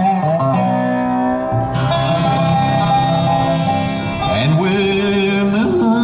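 Live acoustic bluegrass band playing: fiddle, five-string banjo, acoustic guitar, upright bass and a dobro resonator guitar. It holds long notes, with a sliding rise into a new held chord a little after four seconds in.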